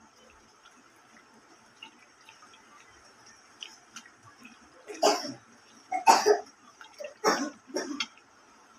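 A hand squishing chicken pieces through a thick, wet masala marinade in a steel bowl. It is faint at first, then gives four or five short, loud squelches in the second half.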